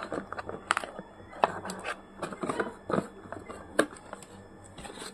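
Small utility knife slitting packing tape on a cardboard insert, with the cardboard scraping and being handled as it is pulled free: a run of irregular clicks and short scrapes.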